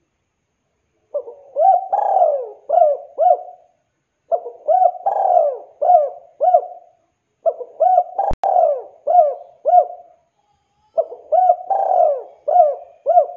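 Spotted dove (tekukur) cooing: four repeated song phrases of several quick coo notes each, about three seconds apart. A single sharp click about eight seconds in.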